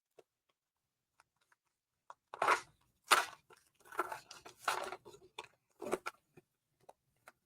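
A foil trading-card booster pack being torn open, with several rough tearing and crinkling rasps between about two and six seconds in, then a few light clicks of card handling.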